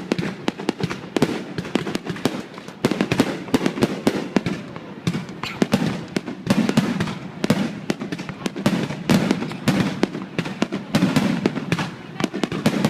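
Fireworks display going off: many sharp bangs and cracks in quick, irregular succession, often overlapping.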